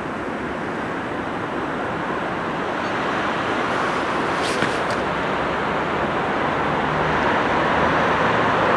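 Container freight train hauled by a DB Class 482 (Bombardier TRAXX) electric locomotive approaching, a steady rolling noise of wheels on rails growing gradually louder as it nears.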